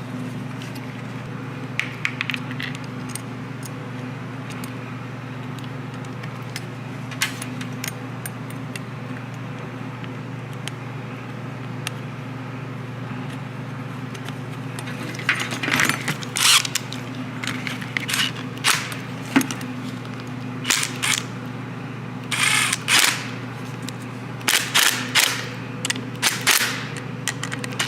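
Sharp clicks and rattles of metal and plastic parts and tools being handled while a car's power antenna mast mechanism is reassembled. They come few and far between at first, then thick and loud from about halfway in, over a steady low hum.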